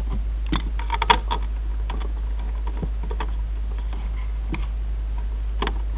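Scattered light clicks and knocks of seat-belt hardware, the belt's metal-and-plastic upper bracket handled and slid into place on the car's door pillar, with a cluster of them about a second in. A steady low hum runs underneath.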